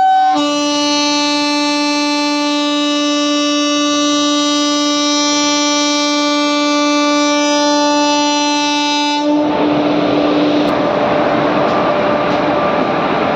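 A short higher toot of a train horn, then a long, steady horn blast of about nine seconds. Near the end it gives way to the loud, steady running noise of a train, with a faint trace of the horn tone.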